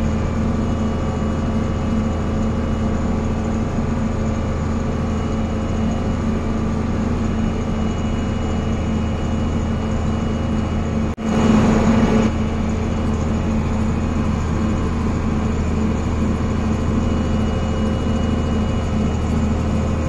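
Tractor engine running steadily, heard from inside the cab while driving across the field. About eleven seconds in the sound drops out for an instant, then there is a brief surge of louder, rougher noise before it settles back to the steady hum.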